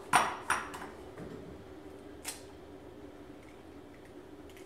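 Egg being cracked and emptied into a ceramic bowl: three sharp clicks of shell against the bowl in the first second and one more about two seconds in. A faint steady hum runs underneath.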